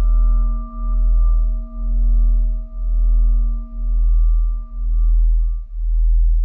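Ambient soundtrack of sustained pure tones over a deep low drone that pulses about once a second. The two lower tones stop near the end, leaving the highest one ringing.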